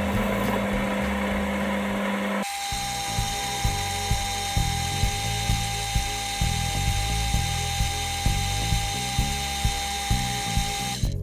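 Boxford metal lathe running under power, facing the end of a turned arbor: a steady machine whine whose pitch jumps at a cut about two seconds in. Background music with a steady beat runs underneath.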